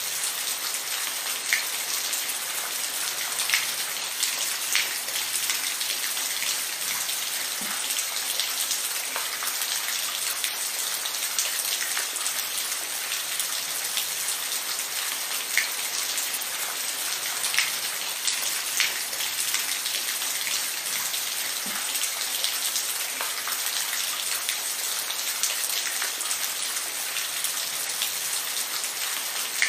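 Steady rain falling, an even hiss with scattered louder drops ticking on a surface.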